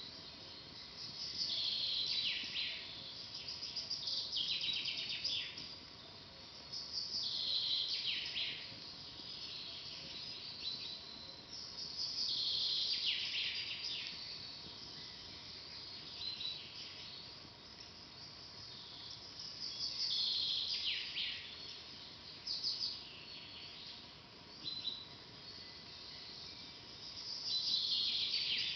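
A songbird singing the same short phrase over and over, each one falling in pitch and lasting a second or two, repeated every few seconds over a faint steady background hiss.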